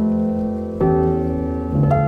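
Classical-style piano music: chords struck about once a second, each ringing on and fading, with rain sound mixed in underneath.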